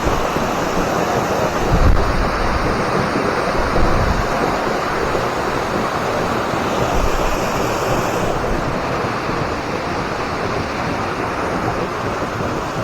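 Steady rush of a waterfall close by. A couple of low bumps of wind on the microphone come about two and four seconds in.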